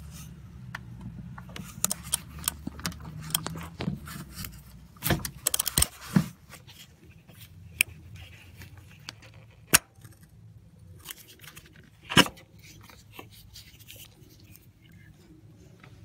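Small metallic clicking from a ratchet and socket working an ignition coil pack's hold-down bolt, then louder knocks and a few single sharp clicks as the connector is unclipped and the coil pack is handled out of its spark plug well.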